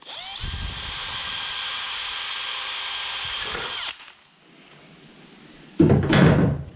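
Cordless drill drilling a pilot hole into aluminium plate: the motor speeds up, runs at a steady whine for about four seconds, then winds down. About six seconds in comes a brief, loud rubbing noise as a hand brushes across the plate.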